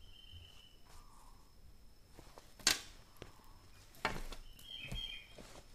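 Handling of a thin black fabric bag on a table: a sharp knock about two and a half seconds in, the loudest sound, then rustling of the fabric as the bag is lifted and turned over, and a low thump as it comes back down.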